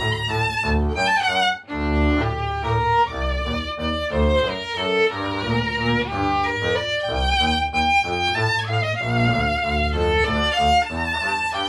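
Violin and double bass duet: the violin plays a melody over the double bass's bowed low line, with a brief break about one and a half seconds in.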